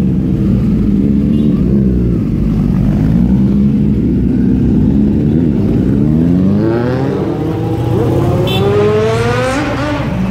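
Superbike engines running as the bikes ride off. From about six seconds in, one engine revs up in a long rising pull that lasts about three seconds.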